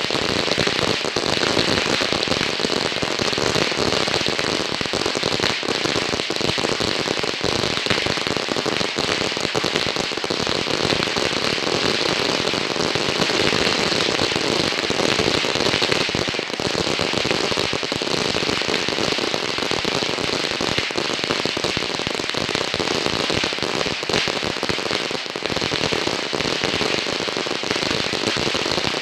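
A long strip of firecrackers going off in a continuous, rapid crackle of overlapping bangs, without a break.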